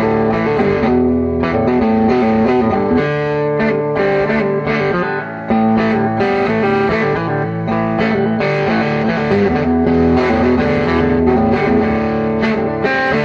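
Background music led by electric guitar, playing steadily with sustained chords.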